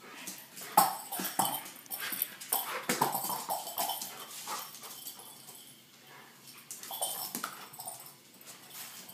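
Irish setter whining and whimpering in short bursts while it moves about, with sharp clicks of its claws on a wooden floor.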